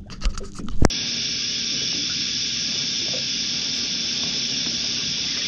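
Two knocks in the first second, then a steady hiss that starts abruptly and holds evenly.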